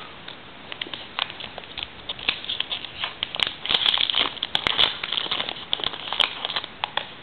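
Trading-card pack wrapper being torn open and crinkled, and the cards handled, in a run of irregular rustles and sharp clicks that is busiest and loudest in the middle.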